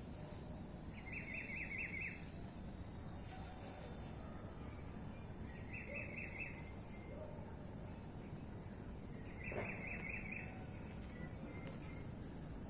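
A bird giving a short, quick call of about five notes, repeated three times at intervals of about four seconds. A steady high insect drone and low outdoor background noise run underneath.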